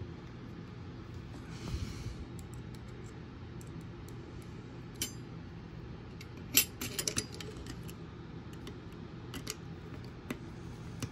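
Small metal clicks and clinks of machine screws and a screwdriver tip against a metal bracket on a robot chassis as the screws are started, with a quick cluster of clicks about halfway through. A low steady hum sits underneath.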